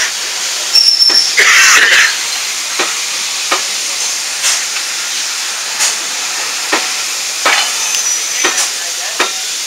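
Steady steam hiss from a steam-hauled train, with a loud burst of hissing about one to two seconds in. Irregular sharp clicks and knocks, roughly one a second, come as the coaches roll slowly past the platform.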